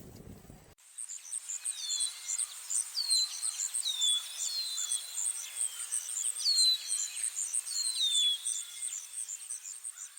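Nature ambience of birds and insects: rapid, high, steady chirping overlaid with short whistles that slide down and level off, repeating about once a second. It begins after a brief low outdoor rumble cuts off abruptly under a second in.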